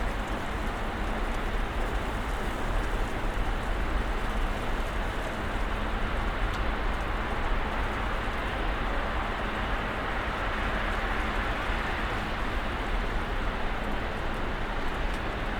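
Snowstorm ambience: a steady, even hiss of falling snow with a low rumble underneath, swelling slightly about two-thirds of the way through.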